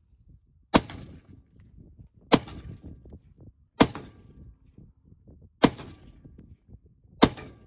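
Five rifle shots from an AR-15-style rifle, fired one at a time about a second and a half apart, each a sharp crack with a short fading tail.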